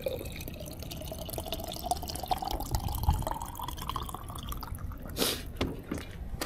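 Freshly boiled water poured into a cup, its pitch rising steadily as the cup fills, followed by a single sharp knock about five seconds in.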